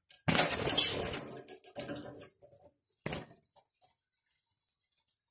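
A budgerigar playing in its cage: two loud, noisy bursts, the first starting just after the beginning and lasting about a second, the second about two seconds in, then a single sharp click near three seconds and a few faint ticks.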